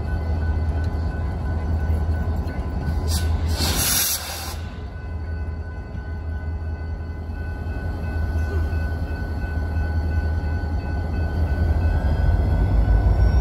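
Diesel switching locomotive working a yard, its engine giving a steady low rumble. A brief hiss comes about three seconds in, and the rumble grows louder toward the end.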